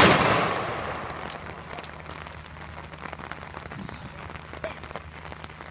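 Ceremonial rifle salute volley, several rifles fired together: one sharp crack at the very start, its echo rolling away over about a second and a half.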